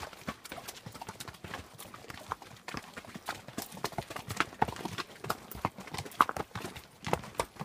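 Hooves of a string of pack horses clip-clopping at a walk on a rocky trail: many irregular strikes overlapping, several a second, with one louder knock about six seconds in.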